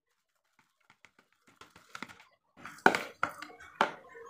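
A plastic spatula stirring and mashing crumbly boiled bait in a plastic bowl: faint scrapes and ticks at first, building to several sharp knocks of the spatula against the bowl in the second half.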